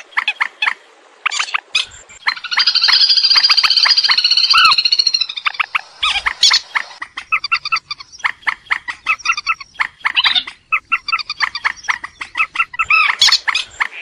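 Swamphen calls from a bird-trapping lure recording: rapid, repeated squealing calls, with a long run of fast chattering notes from about two to five seconds in, then dense short calls again.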